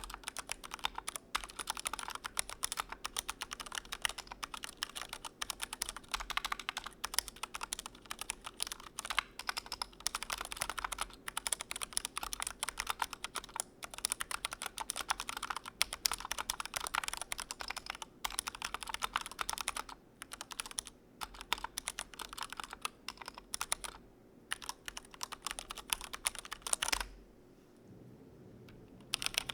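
Fast, continuous typing on a Glorious GMMK Pro mechanical keyboard: a dense stream of keystrokes, with a brief lull part way through. The typing stops for about two seconds near the end, then starts again.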